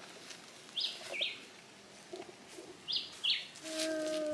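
A bird calling: pairs of short, sharply falling whistled notes, repeated about every two seconds. A steady held low note comes in near the end.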